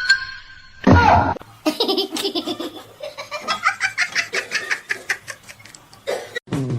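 A person laughing hard in a long run of quick, repeated bursts, after a short separate sound about a second in.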